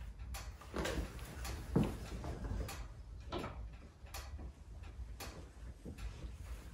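Light knocks and clicks, irregular and roughly one a second, of a person moving about a small room: footsteps and the handling of things.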